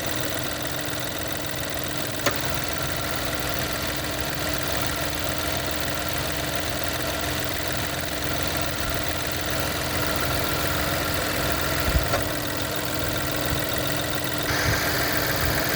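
2024 Chevy Trailblazer engine idling with its AC compressor clutch cycling on and off: short cycling, which the owner suspects comes from a bad low-pressure switch or a low refrigerant charge. There is a sharp click about two seconds in and a short knock about twelve seconds in, and near the end a higher-pitched whir comes in over the steady hum.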